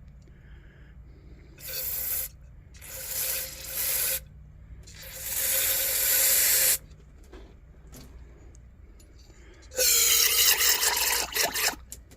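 Aerosol can of carburetor cleaner sprayed into a lantern's fuel fountain in several hissing bursts of one to two seconds each, the last and longest near the end.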